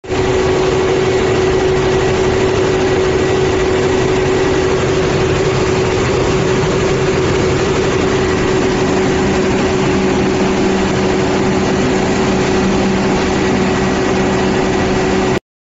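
Perkins 4008TAG2A diesel engine of an 800 kW generator set running steadily, with a steady tone above the engine noise.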